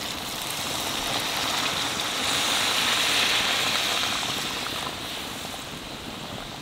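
Hot water poured from a metal pot into a kadai of chicken curry, splashing into the thick gravy. The pour grows louder through the middle and tapers off about five seconds in.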